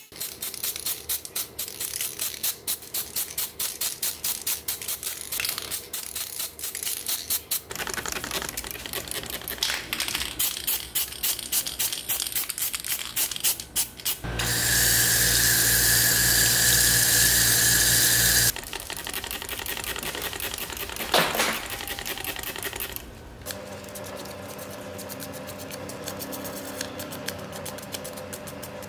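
Handheld rotary tool with an abrasive bit grinding the bare die-cast metal body of a model car, a fast chattering scrape for the first half. Then a steady spray-paint hiss for about four seconds, the loudest part.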